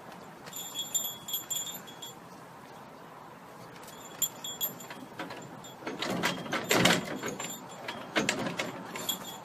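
Light metallic jingling in short spells, with a louder spell of clattering about six to seven seconds in.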